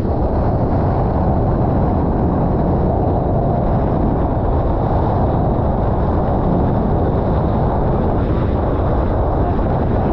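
Steady rush of wind buffeting the microphone and water hissing along the hull of a racing catamaran sailing at speed.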